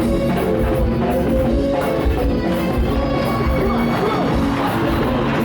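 Rock music with a drum kit and guitar playing at a steady level.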